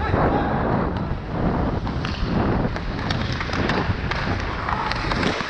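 Hockey skate blades scraping and carving on rink ice, with rushing wind noise on a helmet-mounted action camera's microphone and scattered sharp knocks and clacks.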